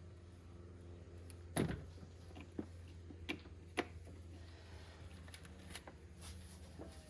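Scattered sharp clicks and knocks of tools and parts being handled during hand work on a truck's wiring, the loudest about a second and a half in, over a faint steady low hum.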